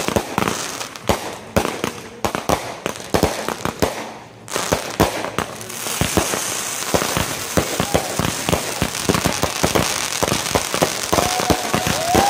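Consumer fireworks finale: rapid, overlapping bangs of bursting shells for about four seconds, a brief lull, then from about six seconds in a dense, steady crackle with many sharp reports layered over it.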